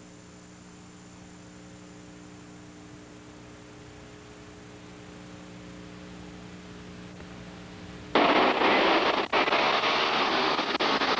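Steady electrical mains hum from the tape transfer. About eight seconds in it cuts abruptly to loud engine noise from a pack of quarter midget race cars racing on a dirt track.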